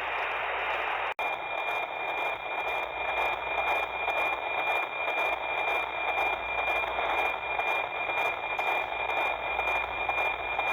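NOAA 19 weather satellite's APT signal as demodulated by an SDR receiver: a steady tone near 2.4 kHz in hiss, with a regular tick-tock about twice a second. It cuts out briefly about a second in.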